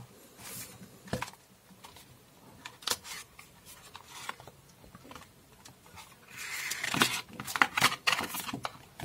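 Hands handling a phone box's white paperboard insert: scattered light taps and rubs as it is lifted out, then a denser stretch of rustling and scraping, with clicks, from about six seconds in as the folded paperboard is opened.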